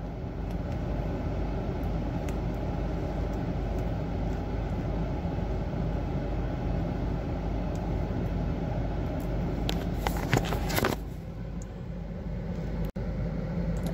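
Steady low hum of a running car, heard from inside the cabin, with a short spell of clicking and rustling close to the microphone about ten seconds in.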